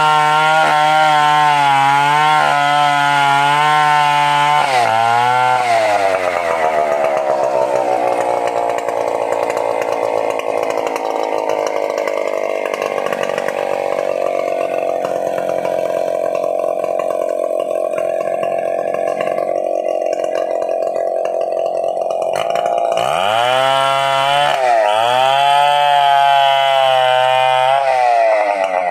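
Stihl 070 two-stroke chainsaw running at high revs. Its engine note drops sharply about five seconds in and stays low and steady through a long stretch, as when the chain is bogged down in a cut. Near the end it revs back up, with several quick dips and recoveries in pitch.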